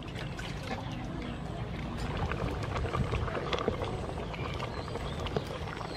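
Curry in an aluminium pot boiling and being stirred with a wooden spatula: liquid sloshing, with many small clicks and knocks over a steady noisy bed.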